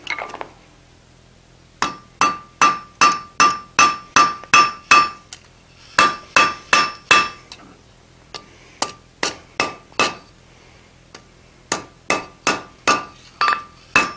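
Hand hammer striking a red-hot iron bar on a steel anvil, drawing out and shaping the end: runs of quick blows, about two or three a second, each with a clear metallic ring, broken by short pauses between runs.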